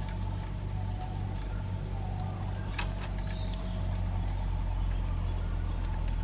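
Steady low motor hum, like an engine running without pause, with one sharp click a little under three seconds in.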